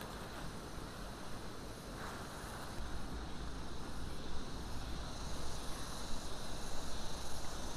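Steady chirring of insects in the open, with a low rumble that grows about three seconds in.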